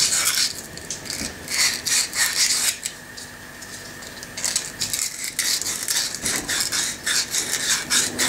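Sandpaper rubbing back and forth over a brass pen-kit tube in quick, irregular scratchy strokes, with a short pause about three seconds in. This scuffs the tube so the glue will grip better.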